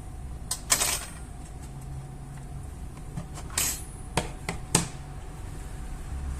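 About six sharp clicks and knocks from laptop parts being handled, the loudest just under a second in and a cluster between three and a half and five seconds, over a low steady hum.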